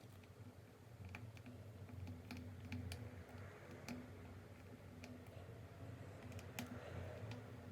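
Faint, scattered light clicks and taps of work on a Cat S60 smartphone opened for a battery replacement, coming at irregular intervals over a low hum.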